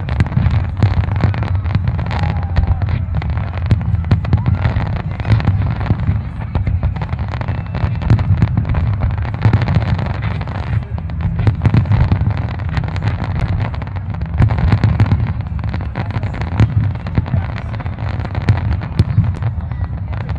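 Fireworks display in full barrage: many aerial shells bursting in quick succession. A continuous low rumble of booms runs under dense sharp pops and crackles.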